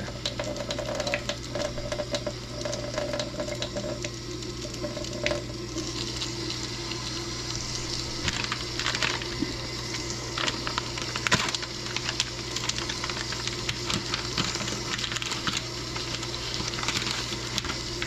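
Hot water trickling from a kitchen faucet in a thin, pencil-width stream into a stainless-steel sink drain, a steady splashing patter, with a constant low hum underneath.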